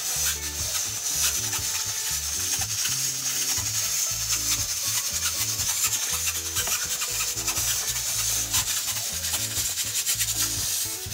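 Metal spoon stirring and scraping soup in an aluminium pot, over background music with a bass line.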